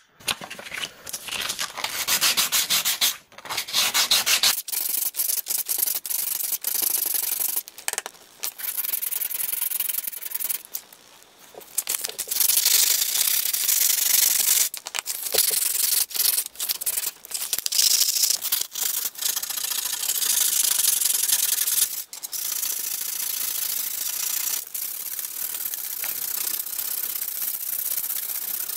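Sandpaper rubbed by hand along the edge of a small piece of thin folded sheet steel, in runs of quick back-and-forth strokes with short pauses between them.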